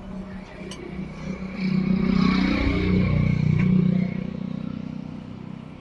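A motor vehicle drives past on the road. Its engine grows louder over the first couple of seconds, is loudest for about two seconds with its pitch dropping, then fades away.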